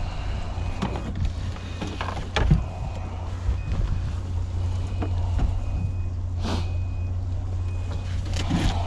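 Boat electronics' shallow-water alarm beeping: short, high, repeating beeps over a steady low hum. Knocks of gear handled on the deck, the loudest thump about two and a half seconds in.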